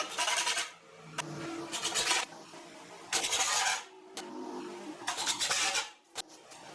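Wood being worked by hand with an abrasive tool: four long scraping strokes, each about half a second to a second, with short pauses between.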